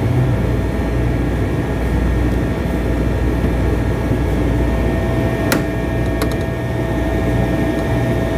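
Steady machine hum with a constant thin whine over a low rumble. A sharp click comes about five and a half seconds in, followed by a couple of faint ticks.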